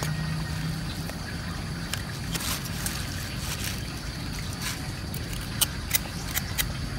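Knife blade scraping the skin of a raw pork trotter in short, quick strokes, heard as a scatter of brief scratchy clicks, over a steady low rumble.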